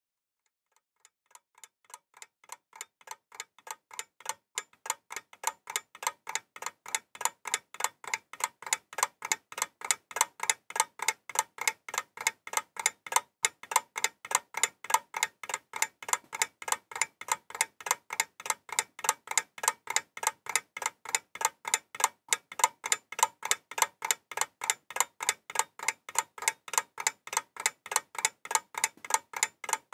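Steady, evenly spaced ticking, about three ticks a second, fading in over the first few seconds and then holding at an even level.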